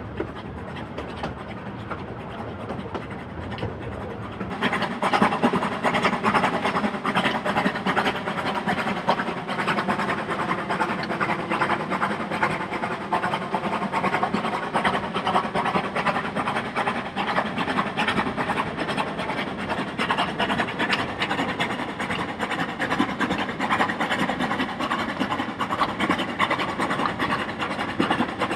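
D&RGW K-36 2-8-2 narrow-gauge steam locomotive working steadily under way with its train, its exhaust and running gear making a continuous, busy din. About four and a half seconds in the sound jumps louder and fuller.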